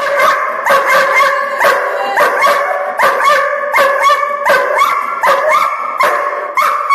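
Seven-month-old dog barking rapidly and steadily, about two barks a second, at a helper holding a bite sleeve during protection training.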